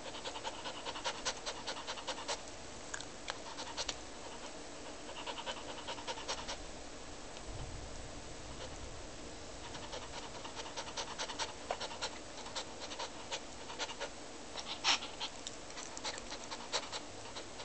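Small dog panting rapidly and heavily in spells, with scattered sharp clicks: anxious stress panting from fear of a thunderstorm.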